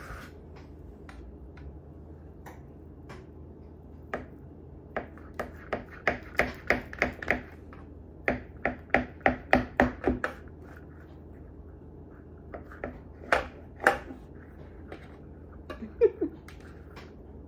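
Knife cutting through soft dough in a metal baking pan, the blade knocking and scraping on the pan in a quick run of strokes, about three a second, then a few single strokes near the end.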